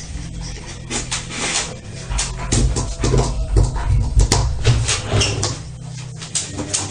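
Dog whimpering inside a shower stall, with repeated scratching and knocking against the glass shower door.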